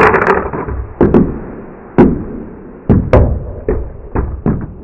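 Two spring-driven plastic dinosaur action figures, wound by twisting their tails, spinning and clacking against each other on a tabletop. About ten sharp hollow knocks come at irregular intervals and grow quicker near the end.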